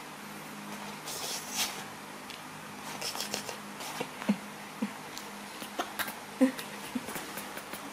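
Rustling of bedding and light taps and clicks as a plastic toy crocodile is handled on the bed. There are a few short squeaks in the second half.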